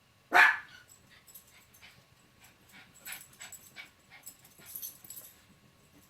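A dog gives one short, sharp bark, followed by a scattering of faint light clicks and rattles.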